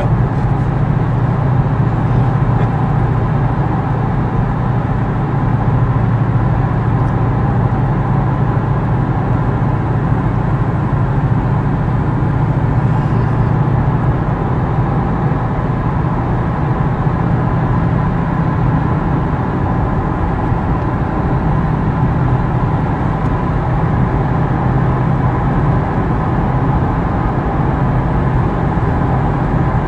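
Steady engine and road noise inside a Ford Mustang's cabin, cruising at highway speed: an even low rumble that does not change.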